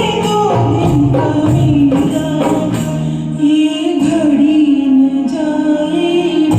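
Karaoke performance of a Hindi film song: backing music with a light percussion beat and a melody line that glides and then holds one long note through the second half.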